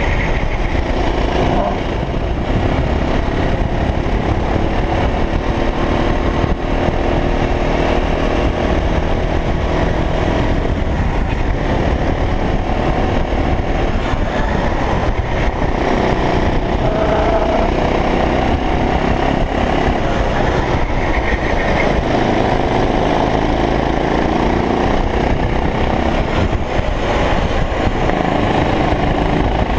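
Go-kart engine running at racing speed, its pitch rising and falling as the driver works the throttle through the corners, with wind buffeting the onboard microphone.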